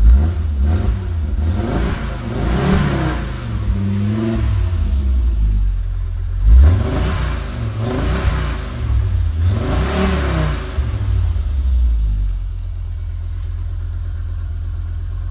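Audi Quattro's turbocharged five-cylinder engine, heard through a newly fitted Milltek exhaust, revved up and down several times while standing, then settling to a steady idle about twelve seconds in.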